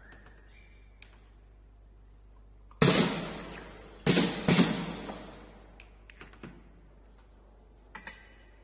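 Semi-automatic two-head piston filling machine cycling: a sharp hiss of air that fades over about a second, about three seconds in, then two more close together a second later as both nozzles dispense. Light clinks of small glass jars follow, one being set on a digital scale near the end.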